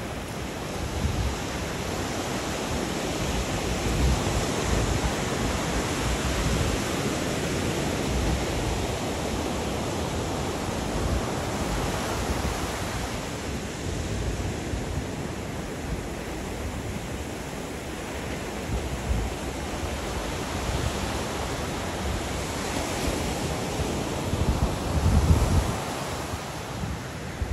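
Ocean surf breaking and washing up a sandy beach, a steady hiss of foam that swells with each set of waves, loudest a little before the end. Wind buffets the microphone in low gusts throughout.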